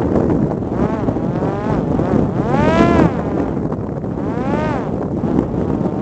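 Drone's electric motor whining, its pitch rising and falling in several swells, loudest about three seconds in, under heavy wind noise on the microphone.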